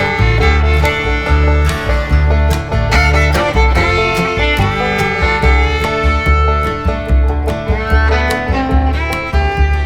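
Bluegrass-style background music with fiddle and guitar over a steady beat.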